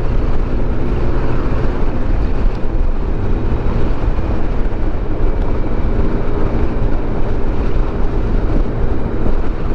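Yamaha NMAX 155 scooter's single-cylinder engine running at a steady cruise, with road and wind noise rushing over the microphone.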